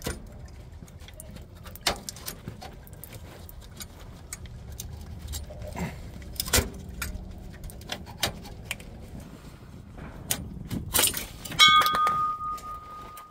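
Scattered clicks and light metallic clinks of a fuel filter and its fuel-line clips being handled and pulled loose, with a busier run of clicks and a short ringing note near the end.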